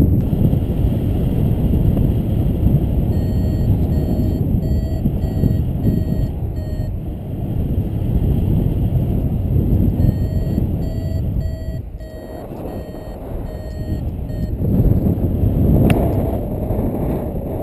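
Wind rushing over the microphone of a paraglider in flight, with a flight variometer beeping in short pips of steady pitch, about two a second, in two spells. The beeping is the vario signalling that the glider is climbing in lift.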